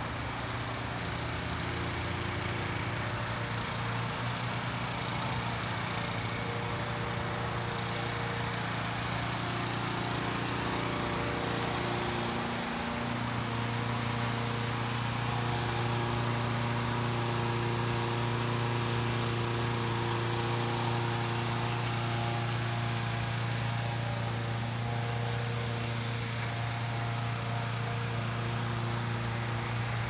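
A running motor's steady low mechanical hum with several held tones, shifting slightly in pitch about thirteen seconds in.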